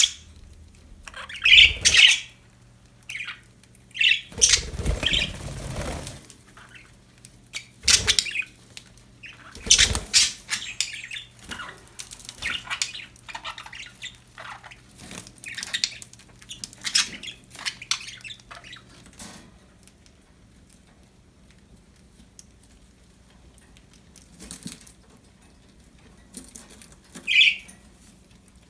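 Pet budgerigars chirping and squawking in short bursts, with a brief flutter of wings a few seconds in. The calls thin out in the second half, with one more chirp near the end.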